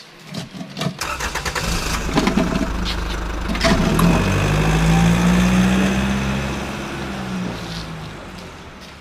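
A vehicle engine cranking with a rapid run of clicks, catching after a sharp knock, then running with a steady hum that slowly fades away.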